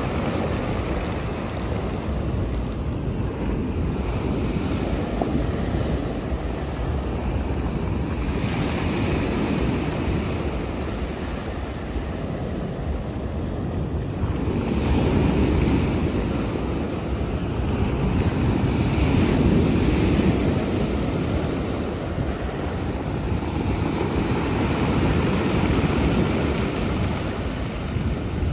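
Sea waves washing onto the shore, rising and falling in slow swells, with wind buffeting the microphone.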